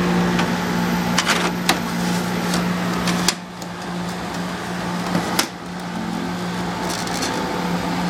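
Maytag 45-pint dehumidifier running: a steady hum from the water bucket vibrating with the compressor, over the whoosh of its fan. Several sharp knocks sound as the unit is handled, and the hum drops a little in level a bit past three seconds in.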